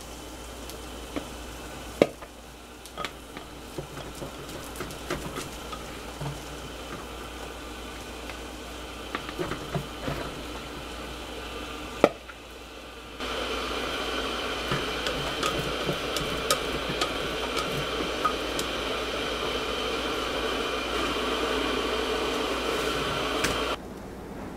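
Cooked rice being scooped with a rice paddle from a clay pot into a bowl: soft scraping and light ticks, with sharp knocks of the paddle against the bowl about two and twelve seconds in. About halfway through a steady hiss comes in under the scooping, and it cuts off shortly before the end.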